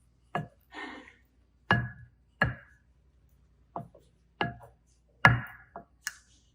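Hard plastic clicks and knocks from small plastic containers being handled, about seven of them at uneven intervals, each with a brief ringing tone. A short scraping rustle comes about a second in.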